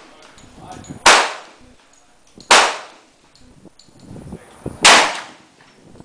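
Three shots from a Desert Eagle .50AE semi-automatic pistol, fired singly at an uneven pace, about a second and a half and then two seconds apart. Each is a sharp, very loud bang followed by a brief echo.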